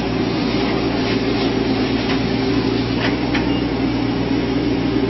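Engine running steadily with a constant drone, a few faint clicks over it.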